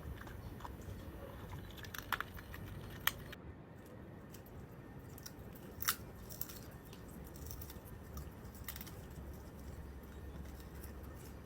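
Chewing and biting on food, with a few sharp clicks about two, three and six seconds in.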